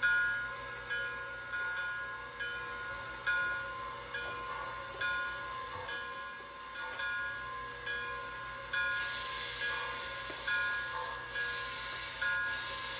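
Electronic bell sound of an O-scale model railroad, ringing in repeated strokes a little faster than one a second. A steady low motor hum runs under it, and a hiss of steam sound rises from about nine seconds in.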